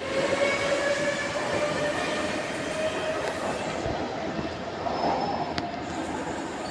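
Singapore MRT train running on the line, a pitched electric traction-motor whine over wheel-and-rail rumble; the whine rises slightly and fades in the second half. A single sharp click comes about five and a half seconds in.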